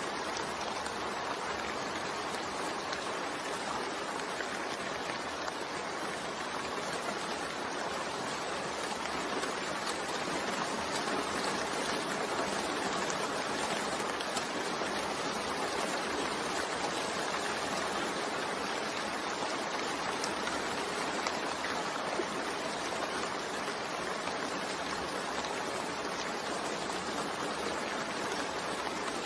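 Steady rain: an even hiss of falling rain with faint drop ticks here and there.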